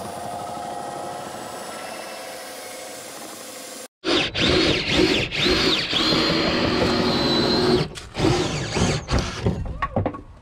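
Cordless drill driving a 70 mm hole saw through a van's double-skinned side wall. It runs steadily and fairly quietly at first. About four seconds in, a much louder stretch starts, with a high whine that rises and falls as the saw bites, broken by short stops, then shorter bursts near the end.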